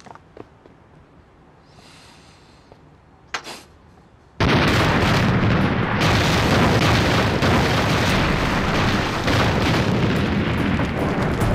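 A few faint knocks in a quiet room, then about four seconds in a sudden, loud, unbroken barrage of shell explosions pounding sandbagged trenches, heavy and dense from then on.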